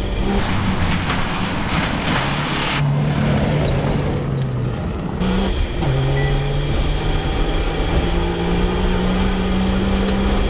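Off-road 4x4's engine running under load; its pitch drops about a third of the way in, then climbs slowly toward the end.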